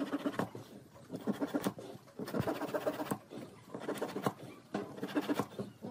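Hand saw cutting protruding wooden dowel pegs off flush with the side of a wooden box, in quick back-and-forth strokes. The strokes come in about five short runs with brief pauses between.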